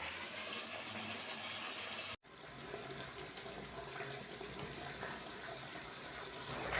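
Steady rush of running water, broken by a brief dropout about two seconds in.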